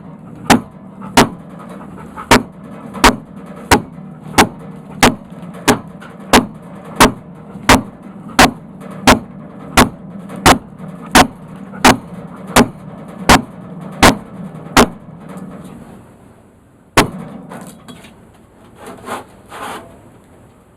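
Sawmill cutting a black walnut log: a steady low hum with a sharp click repeating evenly about one and a half times a second, which stops about fifteen seconds in. One more click follows, then a few scattered scraping noises.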